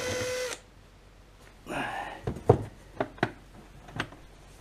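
Cordless drill motor spinning with a steady whine that cuts off about half a second in. Then a handful of sharp knocks and clunks as the drill and the plastic generator casing are handled, the loudest about halfway.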